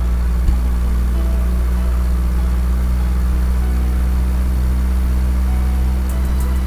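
Car engine idling steadily: a low, even hum that holds at one level.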